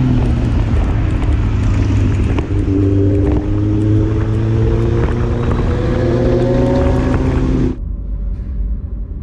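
Four-cylinder motorcycle engine running under gradual acceleration, its note rising slowly. The sound cuts off suddenly near the end.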